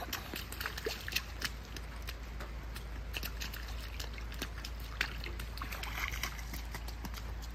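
Toddlers' feet splashing and stepping through a shallow puddle on wet pavement: irregular small splashes and slaps of water, over a steady low rumble.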